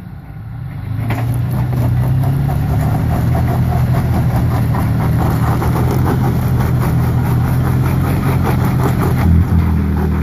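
Toyota FJ Cruiser's 4.0-litre V6 engine working under load as the truck crawls up a rock ledge, swelling about a second in and then holding a steady, even note.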